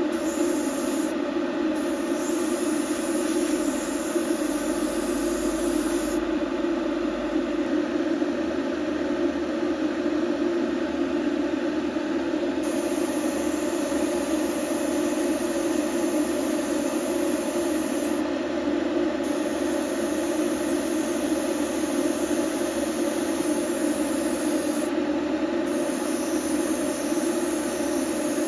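A steady, unchanging mechanical hum with no starts, stops or change in pitch.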